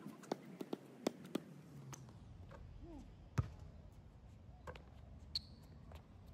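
Basketball bouncing on a hard court: a quick run of faint bounces, about three a second, in the first second and a half, then single louder knocks about three and a half and five and a half seconds in.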